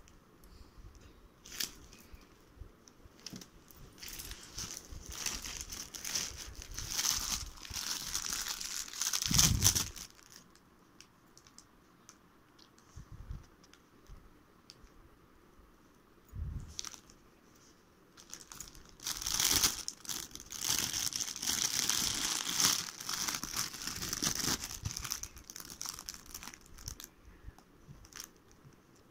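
Plastic bubble wrap and clear packing bags crinkling and rustling as jewellery is unwrapped by hand. It comes in two longer spells, from about four seconds in and again from about nineteen seconds, with lighter handling and small clicks between.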